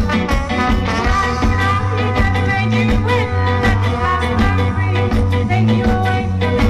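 Band music in an upbeat ska-rock style: a repeating bass line and steady drum beat under melodic lines, with some singing.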